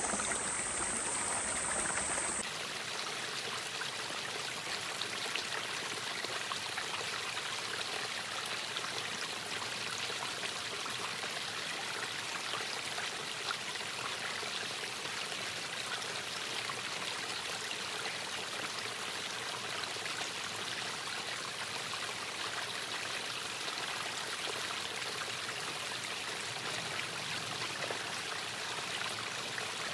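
Steady rushing of a flowing stream, its tone shifting slightly about two seconds in.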